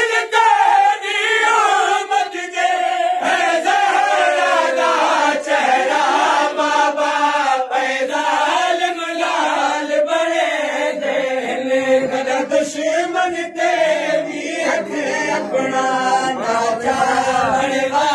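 Men's voices chanting a Saraiki noha (Shia mourning lament) together, a reciter's lead carried by the group in unison. Sharp chest-beating (matam) slaps keep time.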